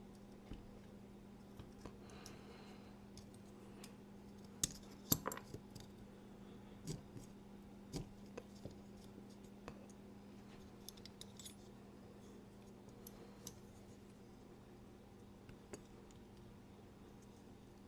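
Sparse small metallic clicks and scrapes of a tool working at a folding knife's handle, carving out a hardened, glued-in magnet. A quick cluster of clicks about five seconds in is the loudest, over a faint steady low hum.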